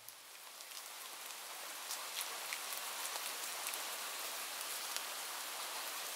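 Steady rain falling, fading in over the first couple of seconds, with scattered sharp ticks of individual drops.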